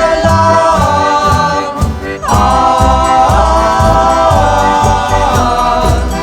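Music: a song with several voices holding long sung notes over a steady beat, moving to a new held note about two seconds in.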